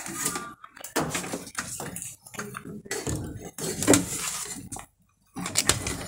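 Clinks, knocks and rustling of hands handling a power plug and its cord, with a sharp knock about four seconds in as the loudest sound.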